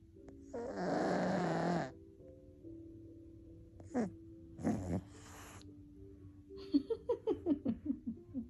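A 15-year-old British Shorthair cat snoring: one long, loud snore about a second in, then shorter, fainter ones around four and five seconds in, over faint steady background music. Near the end comes a quick run of about a dozen short rising pitched sounds.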